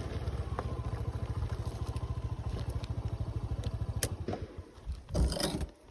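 A small engine running with an even, rapid low throb that stops a little past four seconds in, followed by a click and a short burst of rustling noise.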